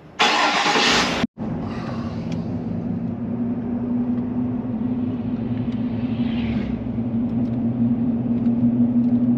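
A car driving at a steady speed, its engine and road noise making a steady hum. It opens with a loud rushing burst about a second long that cuts off abruptly.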